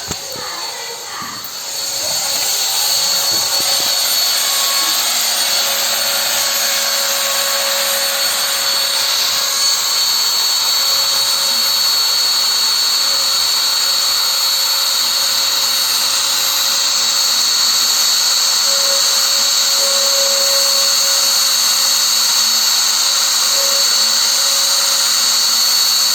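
CNC router spindle running with a steady high-pitched whine, like a drill, growing louder about two seconds in and then holding.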